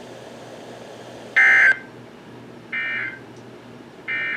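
NOAA Weather Radio SAME end-of-message data bursts: three short, buzzy digital screeches about 1.3 seconds apart, the first the loudest. They mark the end of the severe thunderstorm warning.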